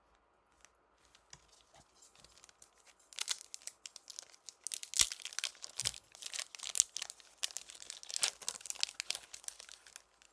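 Foil wrapper of a Pokémon booster pack being crinkled and torn open by hand: a dense run of sharp crackles that starts sparse and grows busy about three seconds in.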